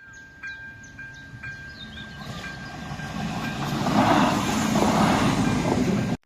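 A train passing, its rushing rail noise building until it is loud in the last two seconds, then cut off abruptly. In the first two seconds quick, high, falling bird chirps and a steady high ringing tone sound over it.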